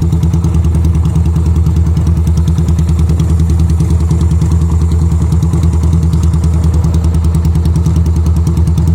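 2001 Yamaha Virago 250's air-cooled V-twin idling steadily through its modified aftermarket exhaust, an even, rapid pulsing beat.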